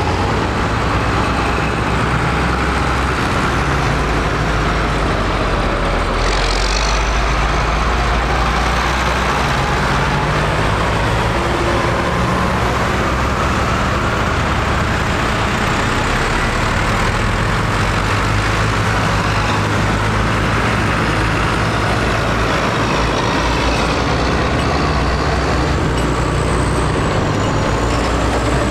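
A line of farm tractors driving past one after another, their diesel engines running steadily together with tyre noise on the road.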